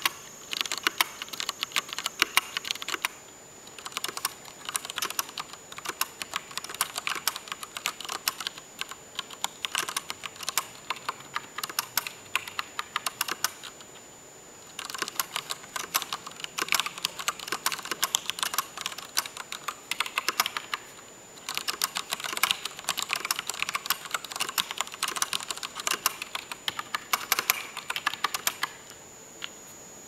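Typing on a Leopold FC700RT mechanical keyboard with Cherry MX Brown switches: fast runs of key clacks, broken by short pauses about three, fourteen and twenty-one seconds in, and stopping about a second before the end.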